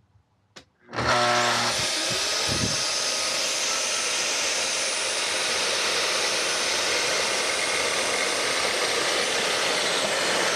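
Festool TS 75 EQ plunge track saw starting about a second in and running steadily as it is pushed along its guide rail through a cut, with a dust extractor drawing through its hose. The saw's high whine starts to fall near the end as the motor winds down.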